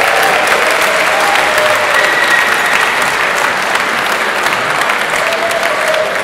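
Audience applauding in a large hall: dense, steady clapping that eases off slightly toward the end.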